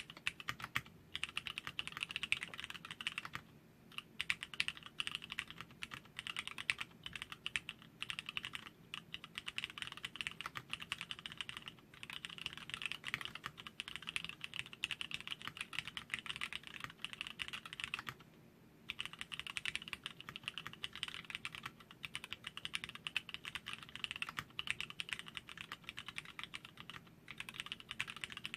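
Continuous fast typing on a wooden-cased custom mechanical keyboard with lubed Cherry MX Black linear switches on 60g springs, a dense run of keystroke clacks with brief pauses about three and a half, twelve and eighteen and a half seconds in.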